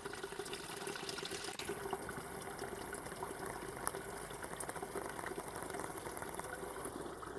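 Spring water from a well running steadily in a small channel cut into an earth bank, a constant trickle.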